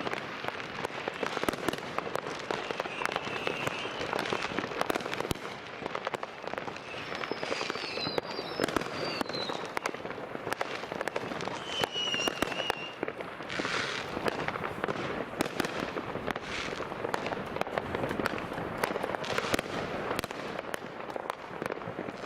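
New Year's Eve fireworks and firecrackers going off without pause, a dense crackle of many bangs overlapping, with a few short whistles gliding down in pitch partway through.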